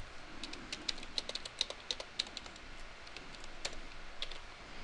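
Typing on a computer keyboard: a quick run of keystrokes for about two seconds, then a few scattered key taps.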